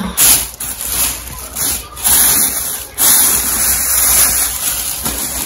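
Plastic packaging rustling and crinkling as items are pulled out and handled, in a few short bursts and then steadily for the last couple of seconds.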